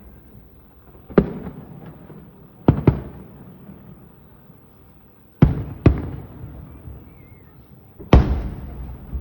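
Fireworks shells bursting overhead: six sharp booms, some in close pairs, each trailing off in a low rolling echo. The last burst, near the end, is the loudest.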